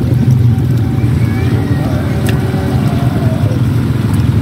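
A steady, loud, low motor drone, the sound of an engine or motor running without a break.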